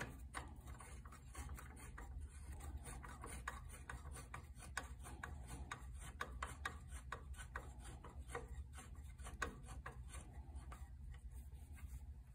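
Faint, irregular small clicks and rubbing from fingers turning the nuts on a brake master cylinder's threaded push rod, over a steady low hum. A sharper click comes right at the start.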